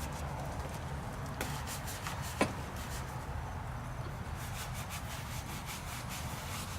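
Scrub brush rubbing over a wet, soapy minibike in a steady scraping wash, with one sharp tap about two and a half seconds in, over a steady low hum.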